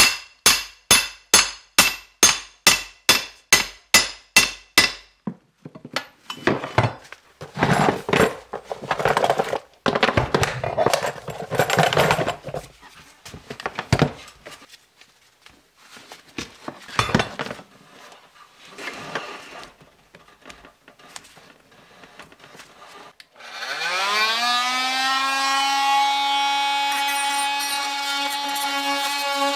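Rapid sharp knocks, about three a second for the first five seconds, then irregular scraping and knocking while working a stuck attic access panel loose. About 24 seconds in, a corded rotary tool starts with a rising whine and settles into a steady run as it cuts along the seam of the panel.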